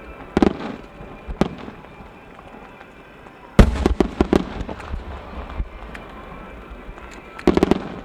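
Aerial firework shells bursting with booms and crackles: a couple of single booms early, a dense loud volley about three and a half seconds in, and another quick volley near the end.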